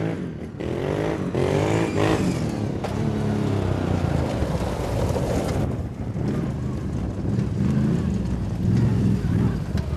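Sport quad (Renegade ATV) engine with a home-built custom exhaust, accelerating hard. Its pitch climbs and drops several times through the first few seconds as it shifts up, then it runs on at a steadier pitch with smaller rises and falls.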